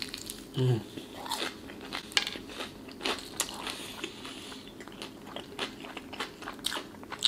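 Close-up crunching and chewing of crispy fried chicken breading. A bite into a Popeyes chicken leg comes at the start, then crackly crunches as it is chewed.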